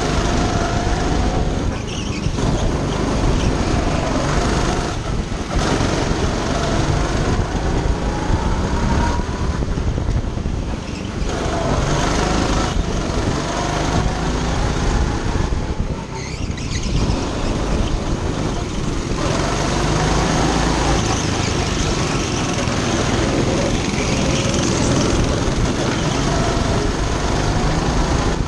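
Go-kart engine running hard through a lap, its pitch climbing and falling again and again as the throttle is lifted for corners and reopened on the short straights.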